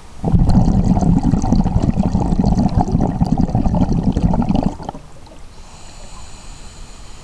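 A scuba diver's exhaled air bubbles out of the regulator as a loud, rough bubbling rumble for about four and a half seconds. It is followed by a much quieter stretch with a faint hiss of the next inhalation through the regulator.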